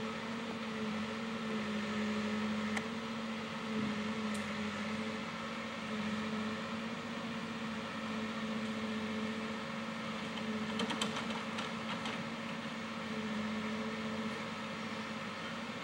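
An engine running with a steady, even drone, and a brief clatter of knocks about eleven seconds in.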